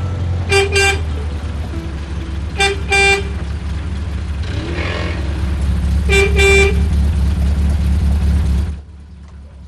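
Car horn honked in three double toots, a few seconds apart, over a small car's engine running. The engine cuts off suddenly near the end.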